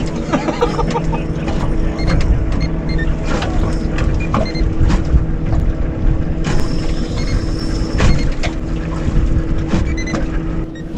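A boat's outboard motor idles with a steady low hum. Scattered clicks and knocks of fishing tackle being handled come over it, one of the louder knocks about eight seconds in.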